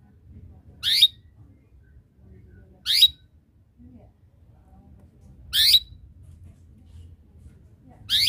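Domestic canary giving short, sharp chirping calls, each a quick downward sweep in pitch, four times at intervals of two to three seconds, the last right at the end. These are the chirps used to call rival canaries into singing.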